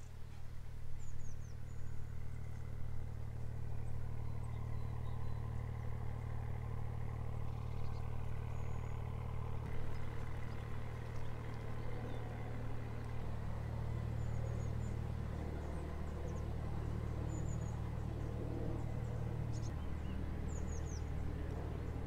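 Narrowboat's diesel engine running steadily as the boat comes along the canal, its pitch shifting slightly near the end. Small birds chirp faintly now and then.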